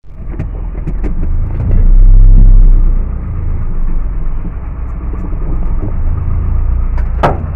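Low rumble of a moving car heard from inside, swelling louder for about a second near the start, with a short knock near the end.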